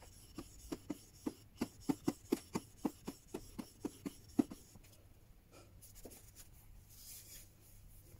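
Steel chisel back being lapped by hand on the wet 3000-grit side of a combination waterstone: short, regular scraping strokes about four a second that stop about five seconds in. Near the end comes a soft cloth wipe.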